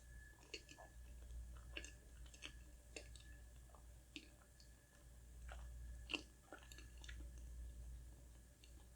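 Close-miked chewing of soft, creamy cake, faint wet mouth clicks and smacks a few times a second.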